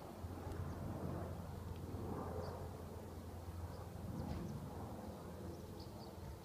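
Leonardo AW139 helicopter flying high overhead, heard as a distant, steady low drone from its rotors and twin turbines. Faint, short bird chirps come through now and then.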